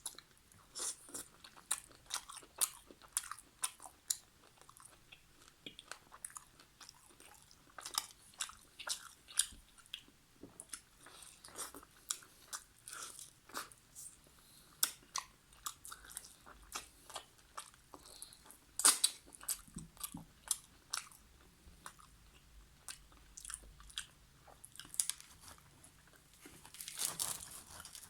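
Close-up eating sounds of a person chewing and biting chicken karahi with naan: a steady run of sharp, irregular mouth clicks, loudest about two-thirds of the way through.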